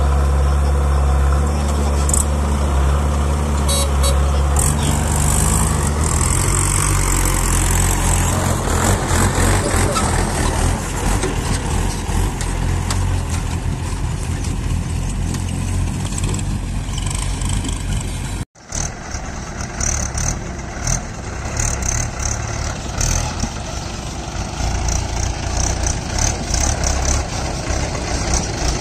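Heavy diesel engine running, a steady low hum at first that turns rougher and more uneven. The sound cuts out for an instant about two-thirds of the way through, and the engine noise goes on after it.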